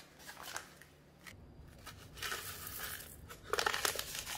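Paper seasoning envelope crinkling and rustling as dry onion soup mix is shaken out of it into the pot, with the loudest crinkling near the end.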